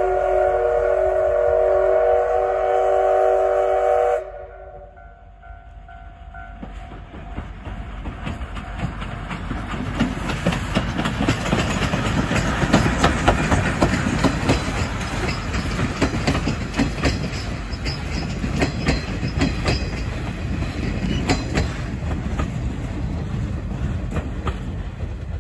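Steam whistle of the C12 66, a Japanese C12-class 2-6-2 tank locomotive, blown as one long chord that cuts off suddenly about four seconds in. The locomotive and its coaches then run past, with a rumble that builds and quick clatter of wheels over the rail joints, loudest a little past halfway.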